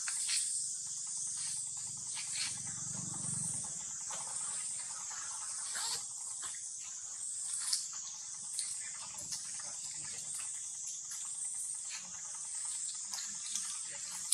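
Steady high-pitched insect drone with scattered faint clicks.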